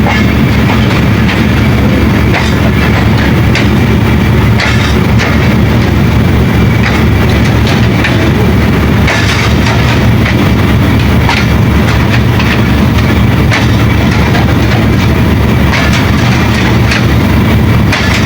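Diesel locomotive hauling a moving passenger train: a loud, steady low engine drone, with irregular clicks and knocks from the wheels running over the track.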